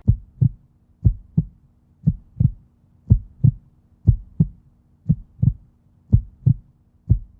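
Heartbeat sound, a pair of low lub-dub thumps about once a second, seven beats in all, over a faint steady hum.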